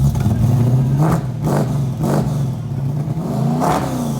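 A car engine running with a steady low note, revved in short blips about a second in, twice more soon after, and once more near the end.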